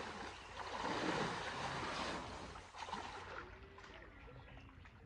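Water sloshing and splashing as elephants wade through a shallow muddy stream, dying away after about three seconds.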